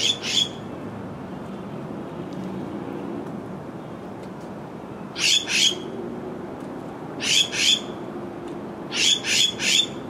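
Small songbird giving short, sharp calls in quick clusters: two at the start, two about five seconds in, two more at seven and a half seconds, and three near the end. A low, steady hum sits underneath.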